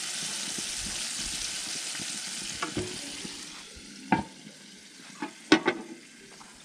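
Roach and rudd sizzling steadily as they shallow-fry in a pan of oil, with the clink of metal tongs. About halfway the sizzle grows fainter, and a few sharp knocks follow, the loudest about five and a half seconds in, as the grill lid is shut and the tongs are set on it.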